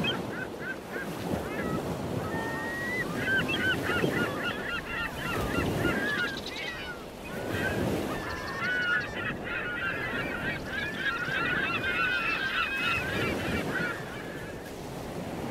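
A flock of birds calling, many short calls overlapping, over a low rushing noise that swells and fades. The calls thin out briefly about seven seconds in and die away near the end.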